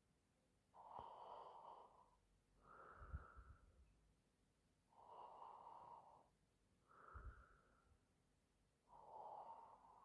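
A sleeping woman snoring quietly. Twice a low fluttering snore comes between soft breathy breaths, one breath about every four seconds.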